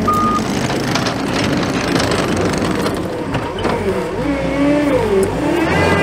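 John Deere 317G compact track loader working a dirt pile, its diesel engine and hydraulics running steadily. Its reversing alarm sounds one last short beep right at the start. From about halfway through, a whine with several overtones wavers up and down in pitch as the machine works.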